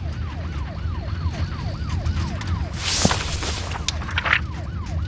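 A siren yelping in quick rises and falls, about three a second, over a steady low engine rumble, with a short loud hiss about three seconds in.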